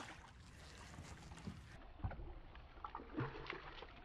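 A hooked largemouth bass splashing at the water's surface beside a kayak, with a few small knocks, the sharpest about two seconds in.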